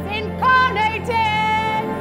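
Music with a high voice singing short sliding phrases, then holding one long note about a second in.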